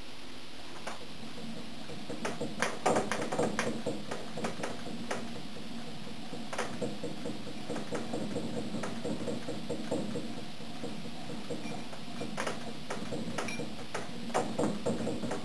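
Stirling engine unit run as a refrigerator, its mechanism giving light, irregular clicks and knocks over a steady hum, the clicks bunching about two seconds in and again near the end.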